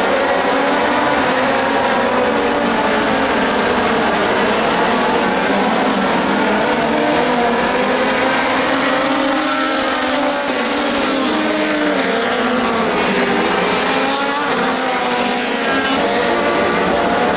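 A field of compact dirt-track race cars running at racing speed together, several engines overlapping at once, their pitches rising and falling continuously.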